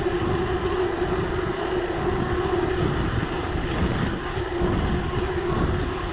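Wind buffeting the action camera's microphone while riding a mountain bike, with the tyres rolling on a concrete street and a steady tyre hum.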